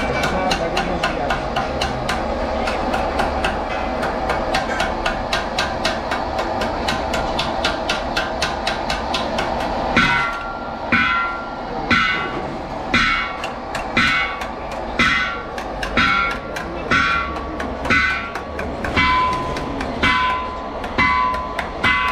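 Hammer striking a brass truck-radiator tank as it is worked by hand: rapid light taps, about five a second, for the first ten seconds or so, then heavier ringing blows about once a second.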